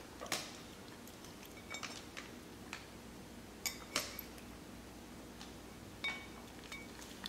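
Yorkshire terrier puppy eating soft wet food from a ceramic bowl: a handful of faint, scattered clinks and clicks against the bowl.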